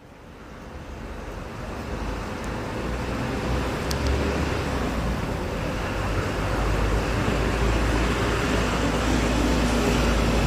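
Steady street traffic noise with a deep low rumble, fading in over the first few seconds. A faint click about four seconds in.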